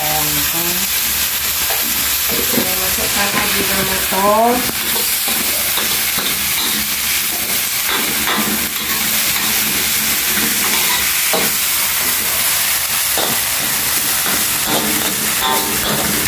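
Greens stir-frying in a wok, a steady sizzle, with a metal spatula scraping and knocking against the wok now and then. A short rising voice-like sound comes about four seconds in.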